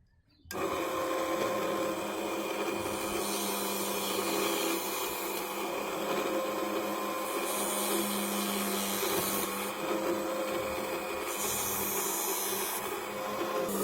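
Small motor-driven homemade machine for shaping sandal rubber into fishing floats, switched on about half a second in and running steadily with a constant hum, and a rough hiss that swells and fades several times as it works.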